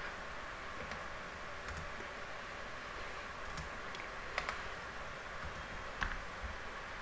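A few isolated computer keyboard keystrokes, sharp clicks a second or two apart, over a steady faint hiss of room noise.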